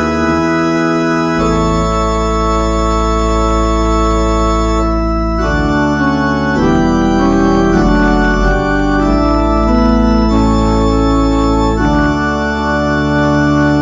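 Organ playing slow, held chords over sustained deep bass notes, the chords changing every second or two.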